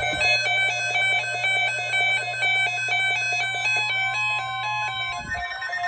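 A synthesized electronic melody of quick beeps stepping up and down in pitch, alarm-like, over a steady low hum. Near the end it settles into a held high tone.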